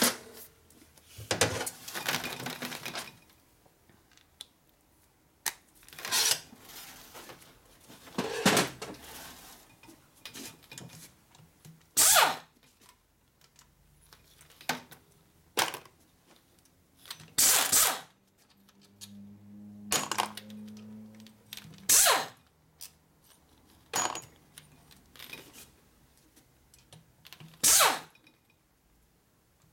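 Pneumatic ratchet on an air hose zipping out the rocker-box bolts of an S&S 113ci Evo engine in short bursts every few seconds, with small metal parts clinking between the bursts.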